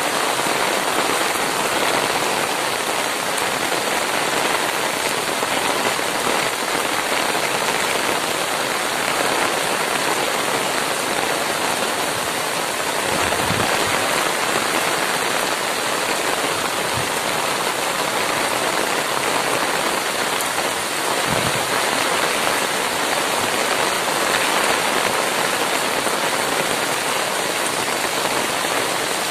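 Heavy downpour of rain falling onto open water: a steady, even hiss of countless drops.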